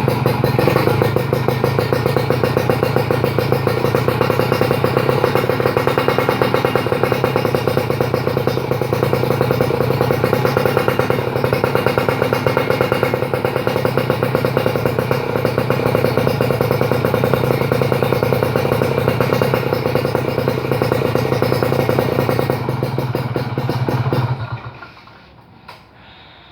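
Kawasaki KR150 two-stroke single-cylinder engine running at a steady speed through a custom stainless expansion chamber and Tyga aluminium silencer, then shut off about 24 seconds in.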